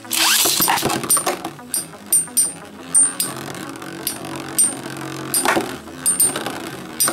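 A metal Beyblade top launched with a rev-up launcher at the start, then two metal Beyblade tops, Twisted Tempo 145WD and Burn Fireblaze 135MS, spinning in a plastic stadium and clashing repeatedly with many sharp metallic clinks as one knocks the other about. Background music plays underneath.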